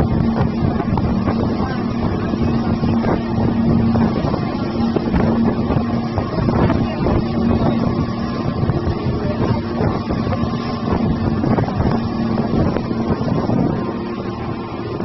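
Motorboat engine running steadily with a constant hum, mixed with rushing water and wind buffeting the microphone; it gets a little quieter near the end.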